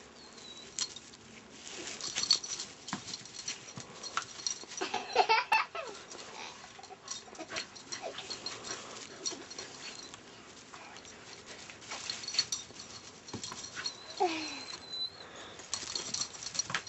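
Dog whining in short falling whines, twice, amid scattered scuffs and knocks.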